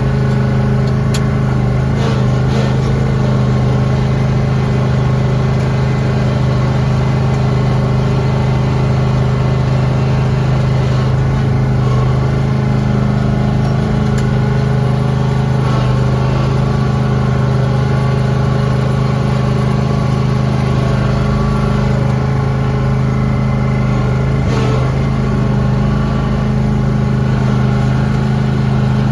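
Lawn tractor engine running steadily while plowing snow, with a few light clicks over it.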